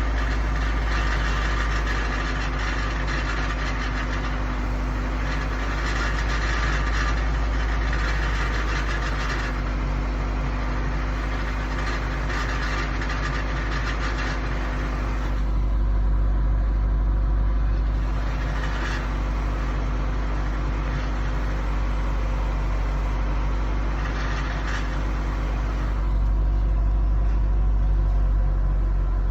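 A rattle from a motor vehicle over a steady low engine rumble. The rattle comes and goes in stretches of a few seconds.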